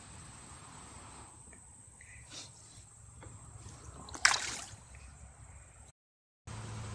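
A largemouth bass being released, hitting the water in one short, loud splash about four seconds in, over a faint steady outdoor hiss.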